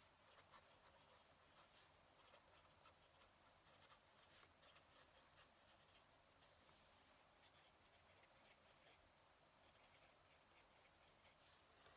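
Faint scratching of a fountain pen nib writing on paper, in short irregular strokes.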